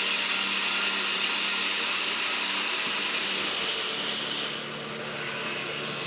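Custom-made horizontal saw, driven by a small 5-horsepower engine, cutting through a log with a steady hissing saw noise that eases somewhat late on.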